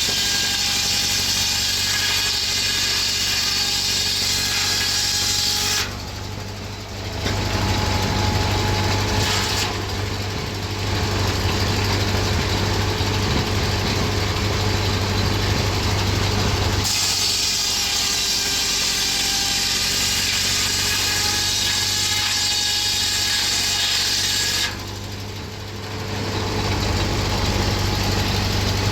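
Circular sawmill blade, flat-belt-driven by a 1931 Ford Model A four-cylinder engine, sawing through logs: two long stretches of high, shrill cutting noise, the first stopping abruptly about six seconds in and the second near the end, with the engine running steadily underneath.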